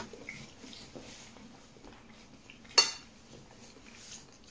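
A metal fork clinking and scraping against a dish during a meal, with one sharp, loud clink a little under three seconds in.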